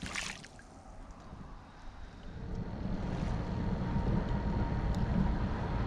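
Wind rumbling on the microphone over water lapping around a kayak, building up about two seconds in and staying steady.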